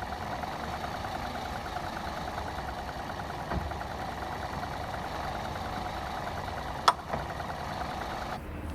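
Car engine idling with a soft knock about three and a half seconds in and one sharp click near the end. The click is the one heard from the front shock absorber and spring when the steering is turned to full left lock.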